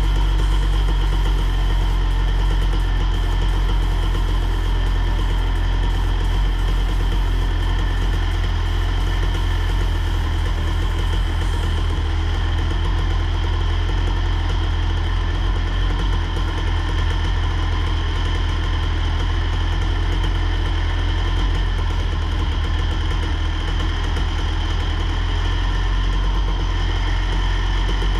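A motor running steadily at an even speed, like an engine at idle: a low hum with steady higher tones that do not rise or fall.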